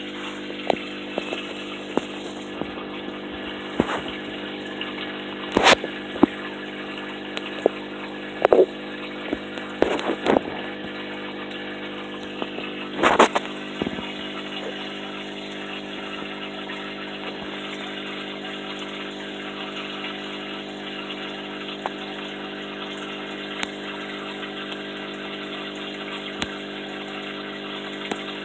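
Aquarium pump running: a steady hum with water bubbling. Scattered sharp clicks and knocks sound in the first half, the loudest near 6, 9, 10 and 13 seconds in.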